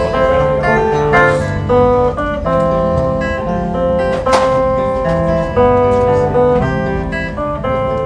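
Instrumental music led by guitar, with held notes, starting to fade near the end.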